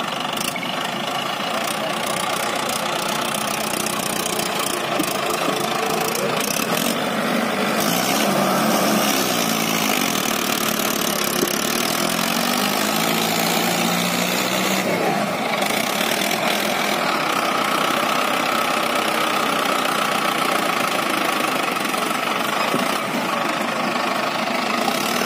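Mahindra Arjun 555 DI tractor's four-cylinder diesel engine running under load as the tractor works through a muddy field, with the engine speed swinging up and down partway through.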